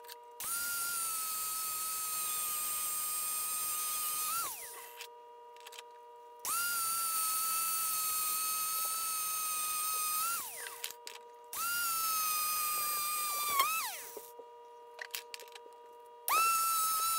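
Handheld drill spinning a wheel against a steel hammer head held in a vise, run in four separate bursts of two to four seconds. Each run holds a steady high whine and spins down with a falling pitch when released.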